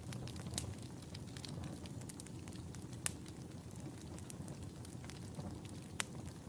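Fire crackling: a steady low rush of burning under irregular sharp pops and snaps, with three louder pops spread through it.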